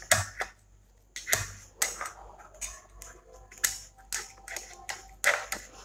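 Steel spoon pressing and scraping chicken nugget mixture down into a metal mould on a ceramic plate: a series of short, irregular scrapes and clicks.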